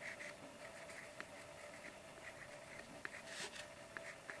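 Blue coloured pencil scratching faintly across paper in short repeated strokes as it shades along an outline.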